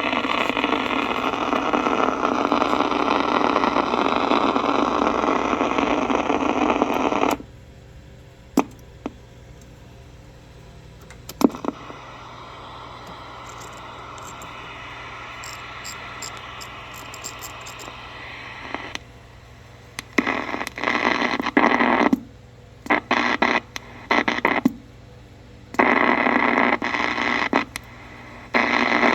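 RCI-2990 ham radio transceiver's speaker hissing with loud static. About seven seconds in the static cuts to a low hiss with a few clicks. In the second half short bursts of static switch on and off again and again.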